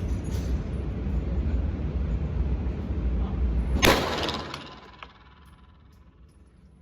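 A single 9mm pistol shot from a Glock 17L about four seconds in, a sharp crack with a brief ring-out, heard over a steady low rumble that fades away after the shot.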